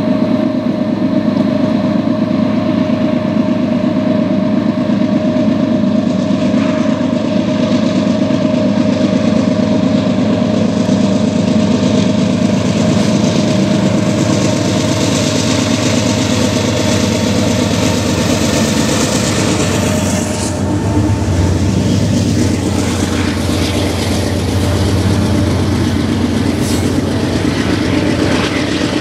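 A CN diesel freight locomotive running as it approaches and passes, a steady engine drone with a steady tone over it. About two-thirds of the way in this gives way to the deeper rumble and clatter of double-stack container cars rolling by on the rails.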